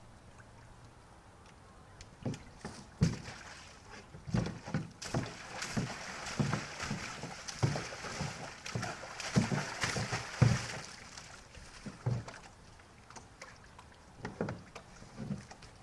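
Water sloshing and splashing in a stock tank as horses paw into it with a front hoof and dunk their muzzles. Irregular knocks of hooves against the tank come throughout, and the splashing is busiest in the middle stretch.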